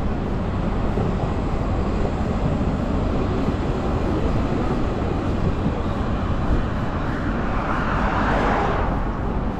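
City street traffic rumbling steadily, with one vehicle passing close by near the end, its noise swelling and then fading.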